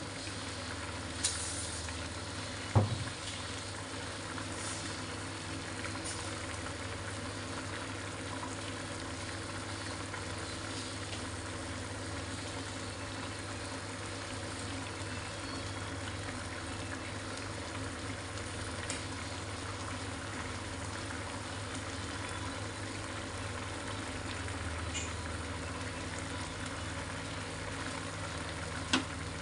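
Spicy sauce with chicken feet, liver and gizzard simmering in a frying pan, bubbling and sizzling steadily as the liquid cooks down, over a steady low hum. A few short knocks are heard, the loudest about three seconds in.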